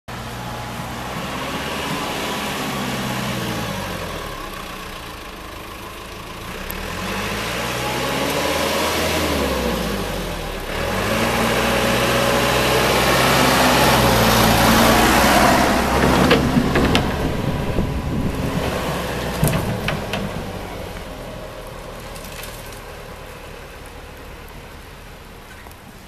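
Backhoe loader's diesel engine running as the machine drives past, its note rising and falling several times. It is loudest as it passes close about halfway through, with a few sharp knocks, then fades as it moves away.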